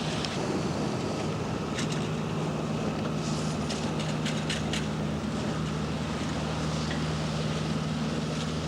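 Sailboat's engine running steadily under power, a constant low hum over the hiss of wind and water. A few faint short ticks come about two seconds in and again around four to five seconds in.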